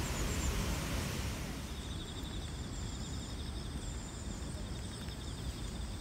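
Steady outdoor hiss over a low rumble. About two seconds in it changes to quieter outdoor background, where insects chirp steadily in a high, rapidly pulsing trill, with fainter higher chirps above.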